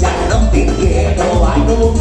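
Live band playing Latin dance music: trumpet and trombone over congas and a pulsing bass.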